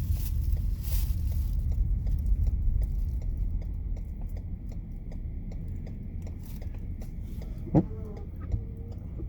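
Nissan Rogue driving on a snowy road, heard from inside the cabin: a steady low road and engine rumble with faint, regular ticking about four times a second. A brief sharp knock comes about eight seconds in.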